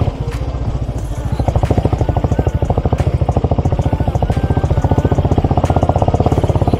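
A vehicle engine running with a steady, evenly pulsing note, with light clattering and clicks over it.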